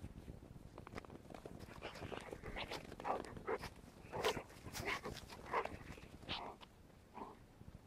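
Schapendoes puppies giving a run of short yips, starting about three seconds in.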